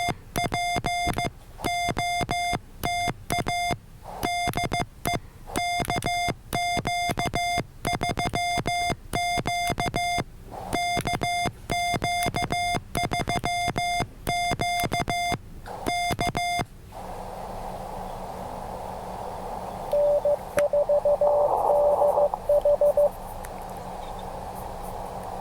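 Morse code sidetone from a paddle-keyed HF transceiver on the 15-metre band, a steady mid-pitched beep keyed in dots and dashes while calling CQ POTA. About 17 seconds in the keying stops and receiver band hiss takes over. From about 20 to 23 seconds a fainter, slightly lower-pitched Morse signal from another station comes through the hiss, and the sidetone starts keying again near the end.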